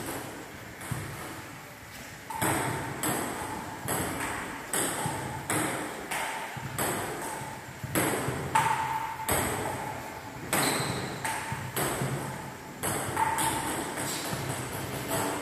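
Table tennis rally: the ping-pong ball clicking off the paddles and bouncing on the table, sharp pocks roughly every half second, each with a short ringing echo. There is a pause of about a second near the start before the rally picks up again.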